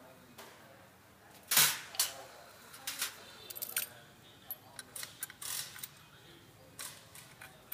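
Metal hand tools and sockets being handled, clinking and clicking. One short loud clatter comes about one and a half seconds in, followed by scattered clinks and clicks.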